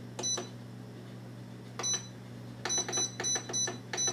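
Power Air Fryer's control panel beeping as its buttons are pressed to reset the cooking timer: a single beep, another about a second and a half later, then a quick run of about six beeps near the end. A low steady hum runs underneath.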